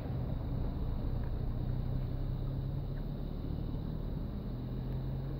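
An engine running steadily, a low rumble with a steady low hum under it.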